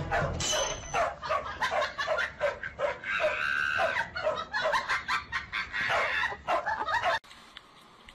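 Dog barking rapidly, about three sharp barks a second, stopping abruptly about seven seconds in.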